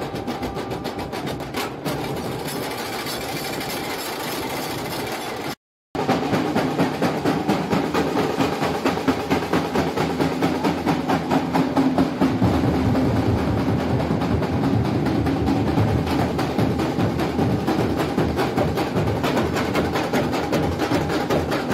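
Fast, steady percussion drumming. About six seconds in there is a brief dropout to silence, and the drumming comes back louder.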